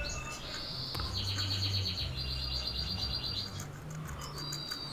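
Crickets chirping: long trills of rapid high-pitched pulses, one after another, with a low hum underneath.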